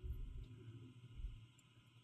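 Faint handling noise: dull low thumps, the strongest at the start and another just past a second in, as the cut plywood piece is held and turned, over a steady low hum.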